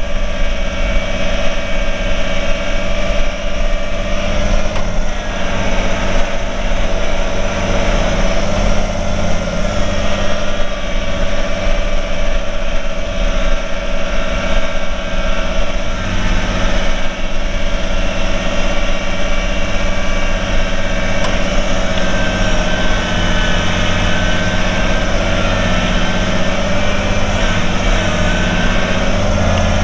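Kubota compact tractor's diesel engine running steadily as the tractor drives, with a steady whine over the engine note.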